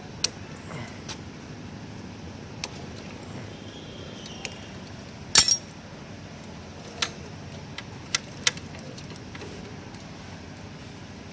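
Scattered metallic clicks and clinks of a motorcycle drive chain being handled as its master-link lock is taken off and the chain removed from the sprockets, with the loudest clink about five seconds in.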